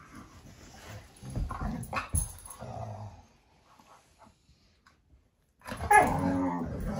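Two pit bulls play-fighting, growling in bursts for the first few seconds. After a short pause, one gives a loud, drawn-out growl near the end. The growls are play, not aggression.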